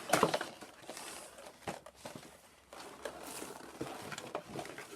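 Toy packaging being handled and crinkled while a box is opened, with scattered light clicks and taps.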